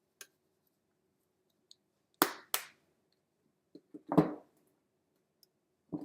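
Spice containers being handled: two sharp clicks in quick succession about two seconds in, then a knock about four seconds in, with a few faint ticks.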